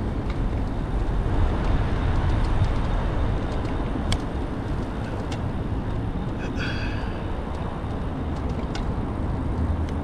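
Steady road noise from passing traffic, with a low rumble under it, during a ride along a street. A few light clicks and a brief high squeak come about two-thirds of the way through.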